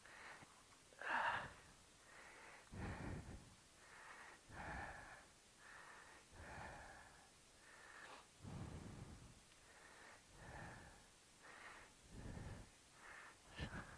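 A person breathing close to the microphone, faint breaths coming about every one to two seconds.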